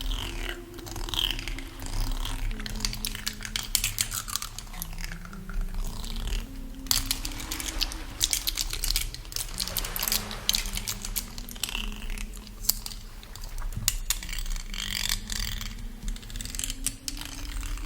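A woman humming a slow, wandering melody in long held notes, with a layer of quick crisp clicks and crackles over it.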